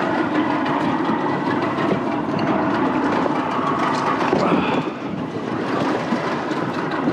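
Open fishing panga's outboard motor running, with water washing against the hull and wind buffeting the microphone in a steady, noisy rush.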